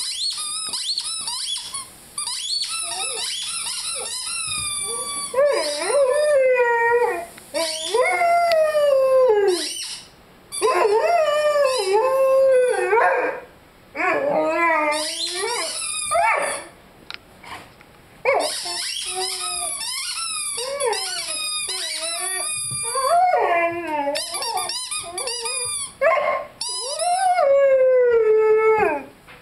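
Rhodesian Ridgeback puppy howling again and again, long wails that slide down in pitch, over rapid trains of high squeaks from a rubber squeaky chicken toy worked in his mouth.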